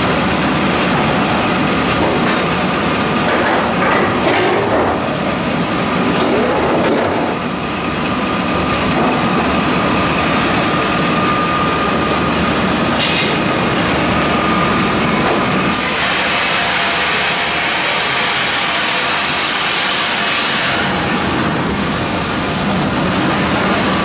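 Mebor HTZ 1200 PLUS horizontal band sawmill running while sawing softwood: a loud, steady mechanical noise with a faint high whine. The sound turns brighter and hissier for a few seconds about two-thirds of the way in.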